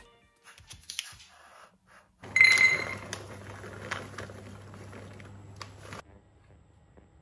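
Plastic bag of dried tapioca pearls crinkling, then the hard pearls poured into an enamel mug. About two seconds in there is a sudden loud clatter with a brief ringing tone, followed by rattling over a low hum. It cuts off abruptly about six seconds in.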